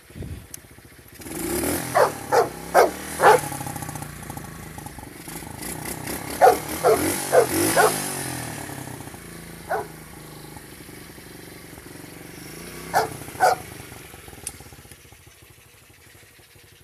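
A just-started SSR 110 pit bike's single-cylinder four-stroke engine idling steadily. Over it a dog barks in short runs: four barks about two seconds in, five more a few seconds later, then one, then two.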